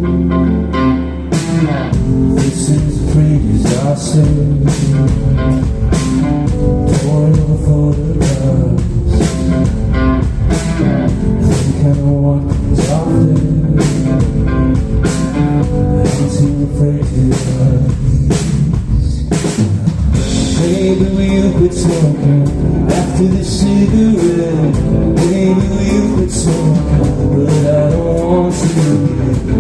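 Live rock band playing: the drum kit comes in about a second and a half in and keeps a steady beat under guitar and bass, with a singing voice at times.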